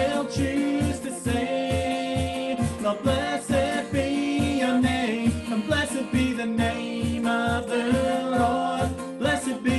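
A woman and a man singing a worship song together to a strummed acoustic guitar, over a steady low beat about three times a second.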